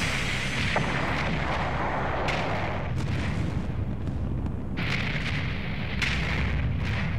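Rock-blasting explosions: several blasts go off one after another over a continuous deep rumble of falling rock and debris.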